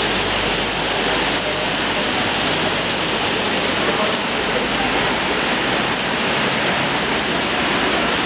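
Heavy rain falling steadily on a tent roof, an even hiss without a break.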